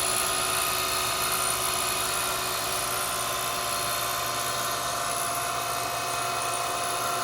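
Grinder running steadily while grinding relief into a 1/4-28 left-hand tap, a continuous whine with a hiss over it.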